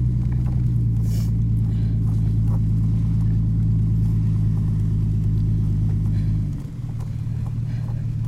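Jeep engine running steadily under load, then easing off about two-thirds of the way through, when its note drops and gets quieter.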